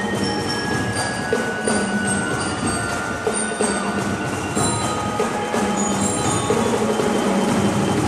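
Marching band playing, with glockenspiels ringing out short bright notes over drums keeping a steady beat.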